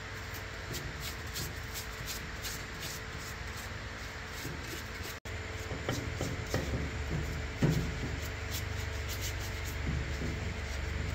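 Honda engine parts being scrubbed in a tub of cleaning fluid: rhythmic rubbing strokes, then light knocks of the metal castings against each other, one sharper knock a little past halfway. A low steady hum runs underneath.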